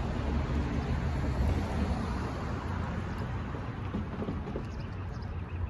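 Intermodal freight train rolling past: a steady rumble of wheels on rail that eases off slightly toward the end.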